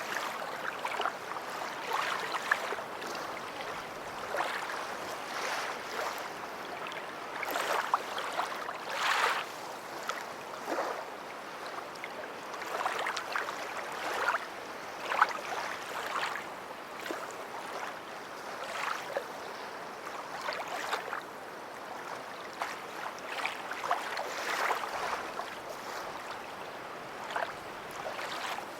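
Small waves lapping and splashing at the water's edge on a beach: a steady wash with frequent little splashes and no deep surf rumble.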